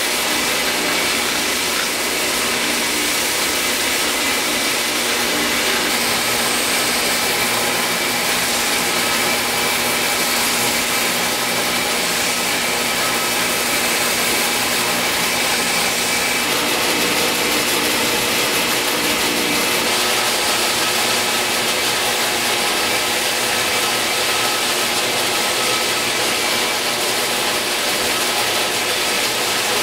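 Reliant 6x48-inch belt sander running together with a shop vacuum on its dust port, while a fretboard in a radius-sanding jig is worked against the 80-grit belt. The machines make a steady hiss with a constant mix of motor tones.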